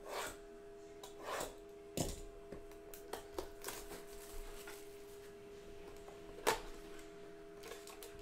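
A cardboard trading-card hobby box being handled and opened, with scattered taps, scrapes and rustles of the box and packs. The loudest is a sharp click about six and a half seconds in. Under them runs a faint steady chord of three held tones.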